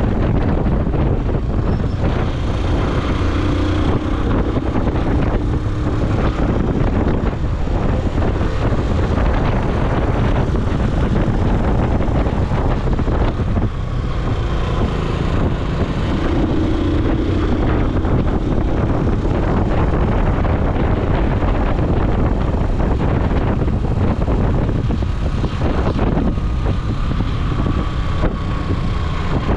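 Steady engine and road noise of a moving motor vehicle, with wind buffeting the microphone as a heavy low rumble.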